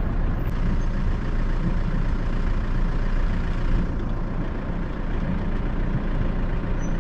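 Engine of a 1998 Sprinter motorhome running steadily, a low even drone.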